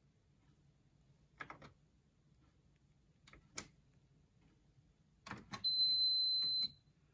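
Hotpoint tumble dryer's programme selector dial clicking as it is turned, in small groups of clicks. Near the end the control panel gives one steady high beep lasting about a second.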